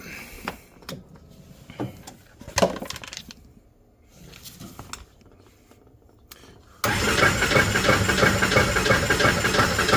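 Scattered clicks and knocks. Then, about seven seconds in, the starter of a 2008 Polaris RZR 800 suddenly cranks its twin-cylinder engine with an even, steady churn that never catches: a no-start.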